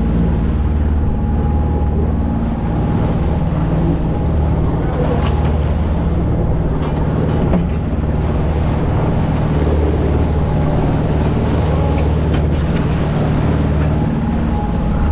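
Crab potting boat's engine running steadily under way, with propeller wash churning off the stern and the odd light knock.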